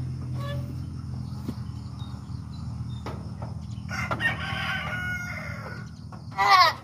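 A rooster crows about four seconds in, and near the end a goat in the pen gives a short, loud bleat, all over a steady low hum.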